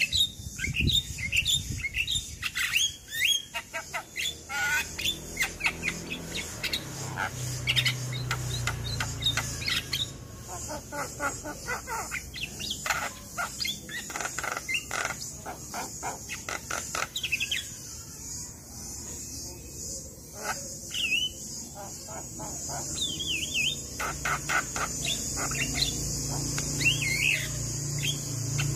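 Javan myna singing a long, varied song: rapid clicking chatter mixed with short whistled notes that slide up and down, delivered in bursts with brief pauses.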